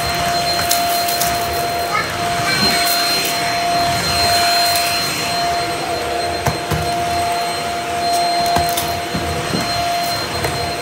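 Bissell vacuum cleaner running steadily as its floor head is pushed over hardwood, with a steady motor whine and rushing air. Scattered sharp ticks are crumbs and debris being sucked up and crunched into the head.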